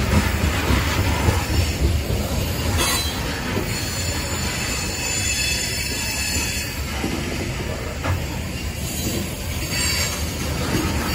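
Train rolling past with a steady low rumble of wheels on rail, a couple of brief clanks, and faint high wheel squeal that comes and goes.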